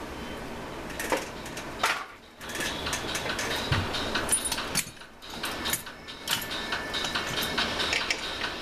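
Scattered light clicks and knocks from hands handling and turning a Stihl BG86 leaf blower's plastic impeller and fan housing, over a steady hiss.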